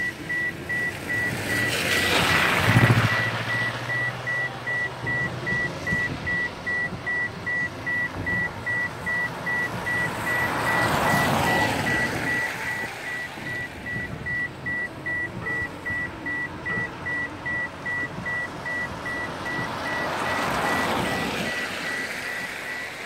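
A high, single-pitched electronic beep repeating evenly and without pause, typical of a car's in-cabin warning chime. Passing vehicles hiss by on the wet road three times, swelling and fading; the first, near the start, carries a low rumble.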